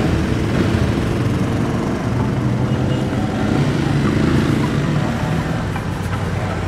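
Aprilia Tuareg 660's parallel-twin engine running on the move, with wind rushing over the microphone. The engine note rises briefly a few seconds in and eases off again.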